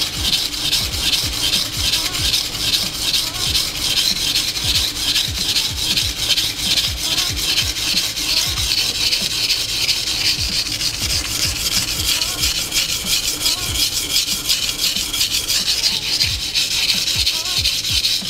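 Japanese petty knife blade being ground on a whetstone in quick, even back-and-forth strokes under firm finger pressure: a steady rasping scrape that removes a lot of steel to grind a chip out of the edge.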